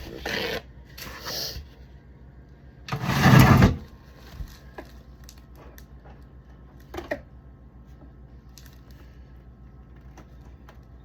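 A knife scraping at dried, stuck-on caramel residue inside a refrigerator: a few short scrapes, then one louder, rougher scrape and rub about three seconds in, followed by light scattered clicks and taps.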